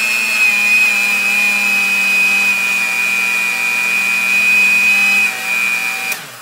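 Countertop blender motor running with a steady high whine, then switched off near the end and winding down. The thick pepper, garlic and ginger mix has little water and is hard to blend.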